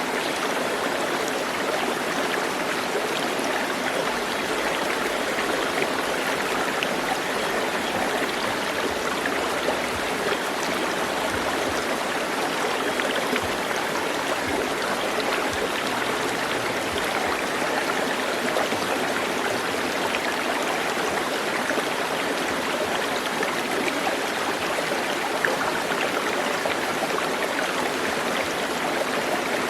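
Steady running water, an even rushing that does not change.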